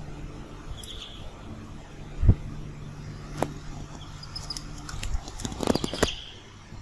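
A chick moving about on a hard plastic lid. There is a low thump about two seconds in and a flurry of taps and clicks near the end, with a couple of faint high peeps, over a steady low hum.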